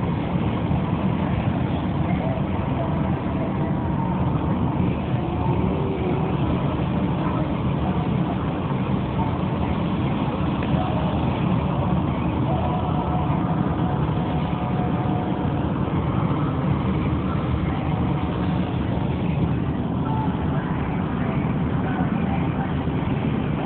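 Steady road and engine noise inside a moving car's cabin, an even low rumble with no sudden sounds.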